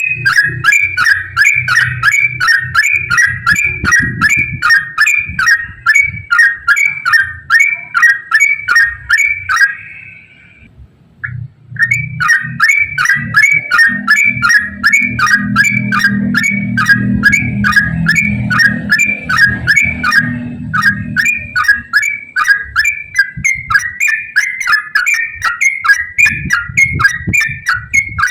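Yellow-vented bulbul (trucukan) singing a long, rapid run of short whistled notes, about three or four a second, in the fast continuous 'ropel' style used to lure other bulbuls into calling. The run breaks off for a moment about ten seconds in, then carries on, over a low hum.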